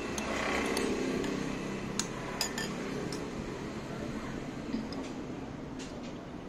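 A small spoon clinking against a small ceramic bowl as a toddler scoops from it, about half a dozen light, scattered clinks.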